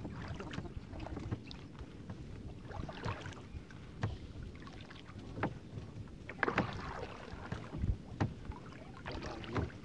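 Water lapping and splashing around a small fishing boat, with irregular knocks and bumps against the hull.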